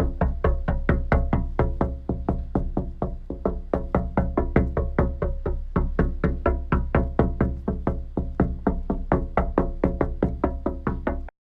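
Background music: a quick, even pulse of short plucked or struck notes, about five or six a second, over a steady low bass. It cuts off briefly right at the end.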